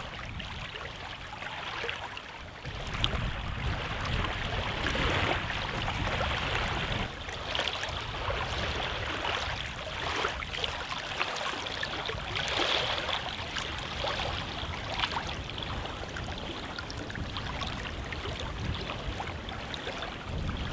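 Wind gusting against the microphone, with a rumble that swells and eases, over small waves lapping on a stony reservoir shore.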